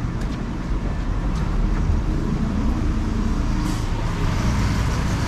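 City street traffic: motor vehicles running and passing close by, a steady low engine rumble that swells slightly, with a brief hiss a little before the end.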